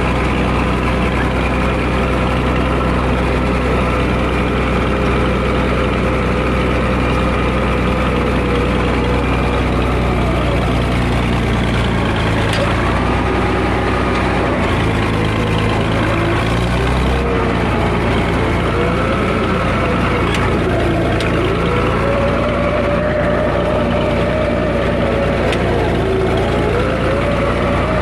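Bulldozer's freshly overhauled diesel engine running steadily. From about ten seconds in, its low note shifts a couple of times and a whining tone rises and falls over it, as the machine is driven.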